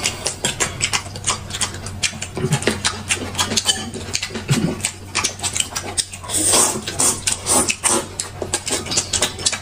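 Close-miked eating: wet chewing and lip-smacking, with quick irregular clicks several times a second and a couple of longer slurping smears a little past the middle.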